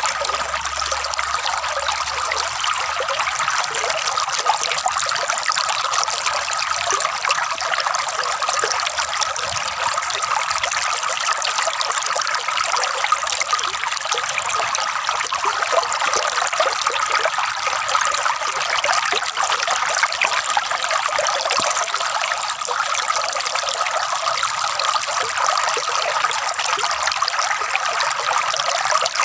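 Flowing water trickling and gurgling steadily without a break, a light splashing sound with little low rumble.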